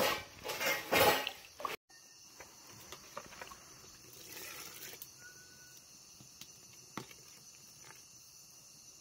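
Crickets chirring steadily in the background, with a few sharp clinks of a metal ladle against the soup pot and a soft pour of liquid about four seconds in as coconut milk goes into the caldo. The first couple of seconds are louder and cut off abruptly.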